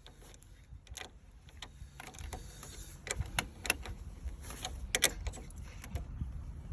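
Scattered metallic clicks and light knocks as the negative battery cable is fitted back onto the battery terminal and tightened, with a low handling rumble from about two seconds in.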